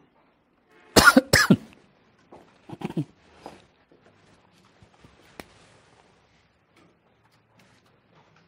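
A person coughs three times in quick succession about a second in, then makes softer throat sounds a moment later. There is a single sharp click near the middle.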